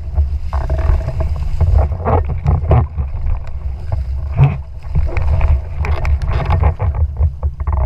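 Wind buffeting the action-camera microphone in a steady low rumble, with water hissing and splashing irregularly as a windfoil board rushes over choppy water.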